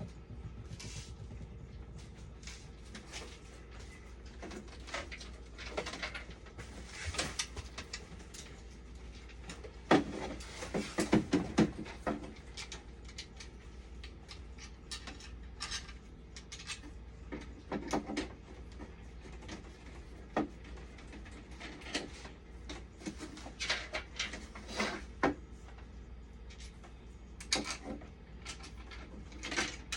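Scattered clicks, taps and light knocks of small parts and tools being handled during a repair, with a denser run of knocks about ten seconds in, over a steady low hum.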